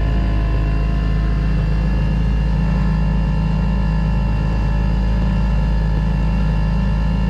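A boat's engine running steadily while underway: a constant, even drone.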